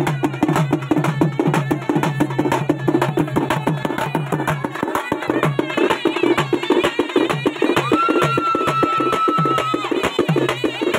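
Street drum band playing a fast, dense rhythm on stick-beaten and hand-played drums, with a brass horn holding one high note for about two seconds near the end.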